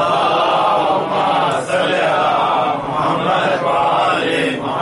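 A congregation reciting the salawat aloud together: many voices chanting in unison the Arabic blessing on the Prophet Muhammad and his family.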